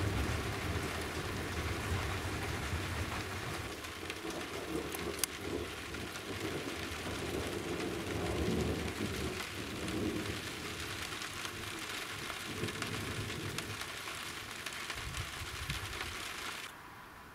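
Rain falling on roofs and garden, a steady hiss with low rumbles of thunder underneath. The hiss cuts off suddenly near the end.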